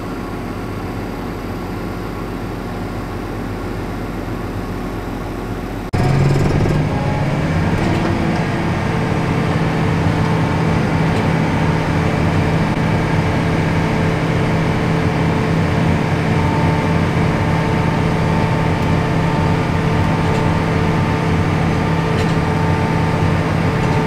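A steady noise, then about six seconds in it cuts abruptly to a tractor engine running steadily under load, heard from the cab, its pitch rising briefly before settling to an even drone.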